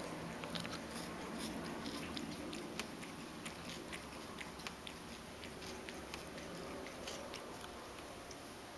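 Ragdoll cat licking its paws while grooming: a quick, irregular run of small wet licking clicks.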